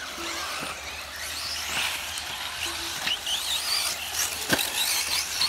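Electric off-road RC buggies racing, their brushless motors whining up and down in pitch as they accelerate and brake, with one sharp knock about four and a half seconds in.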